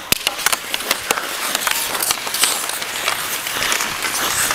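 Ice hockey sticks clacking sharply against the ice and puck at a faceoff drop, several quick knocks in the first second, followed by skate blades scraping and hissing on the ice as the players skate off.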